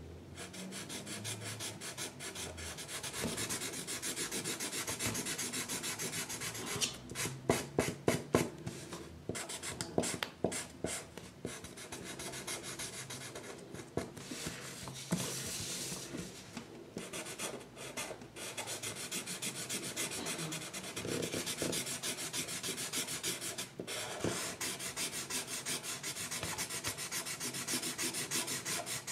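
Coloring strokes on paper: a drawing tool rubbed rapidly back and forth, with a run of louder, sharper strokes about a quarter to a third of the way in.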